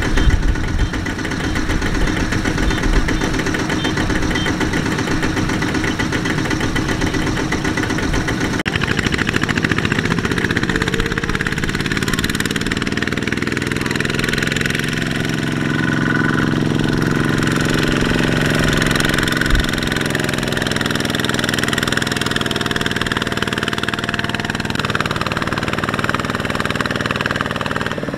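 Kubota RT120 power tiller's single-cylinder diesel engine running steadily while hauling a loaded trailer. About a third of the way in the sound changes abruptly to a smoother, more even engine note.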